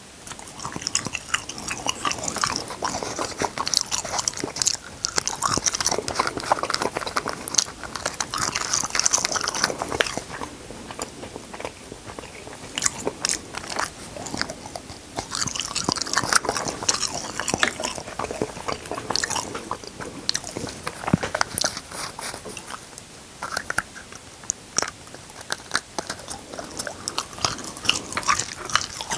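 Close-miked chewing of crunchy food: irregular crisp crunches and smacking bites that come and go in flurries.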